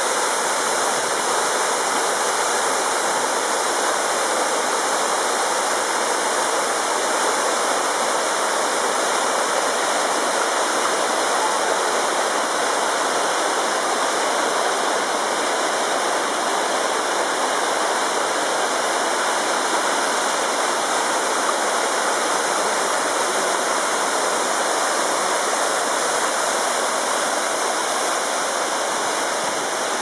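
A waterfall and shallow stream running over rocks: a steady, unbroken rush of water.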